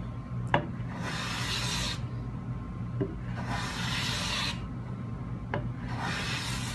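Metal hand plane taking three light finishing passes across a hardwood panel, each a hissing slicing stroke of about a second. A small click sounds as the plane sets down before each stroke. The blade is sharp, with a properly set chip breaker, and is lifting fine shavings.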